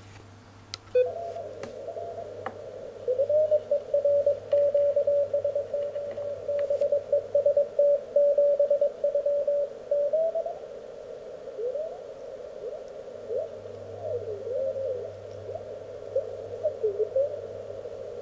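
Elecraft K1 QRP CW transceiver receiving on the 17-meter band: band noise through its narrow CW filter and a Morse code signal keyed on and off for several seconds. After that come short whistling tones that slide up and down in pitch as the tuning knob sweeps past other signals. A few sharp clicks come in the first couple of seconds.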